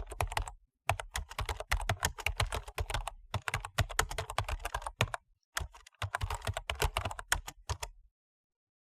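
Keyboard typing: rapid runs of keystroke clicks in three bursts, with short pauses about a second in and about five and a half seconds in, stopping abruptly about eight seconds in.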